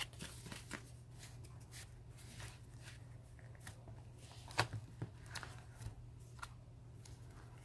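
Paper and chipboard pages of a handmade mini album being handled: soft rustles, slides and light taps as a recipe card is tucked in and pages are flipped, with one sharper tap about four and a half seconds in. A faint steady low hum lies underneath.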